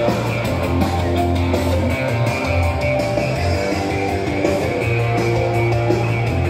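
Rock music with guitar and a sustained bass line.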